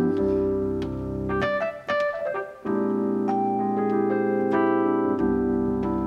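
Grand piano playing sustained chords over a steady bass, thinning to a few single struck notes about two seconds in before the full chords return.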